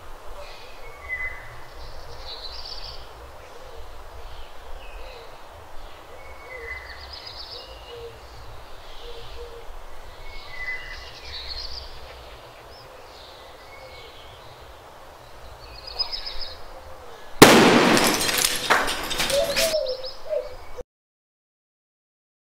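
Birds chirping over quiet outdoor background noise. About seventeen seconds in, a firecracker goes off inside a clay water pot with a sudden loud blast that stays loud for about two seconds. The sound then cuts off to silence.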